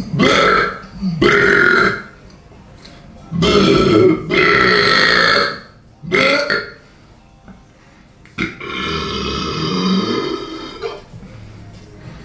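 A person belching loudly on purpose: five burps in quick succession, then a longer, somewhat quieter belch of about two seconds near the end.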